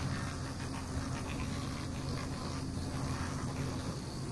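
Pneumatic air pen buzzing steadily as it chips soft shale off a fossil slab, stopping near the end.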